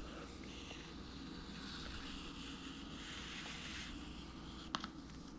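Soft scraping of a thin flat scraper drawn along a wooden board, lifting excess wet epoxy from an epoxy-filled crack, over a steady low background hum. One sharp click near the end.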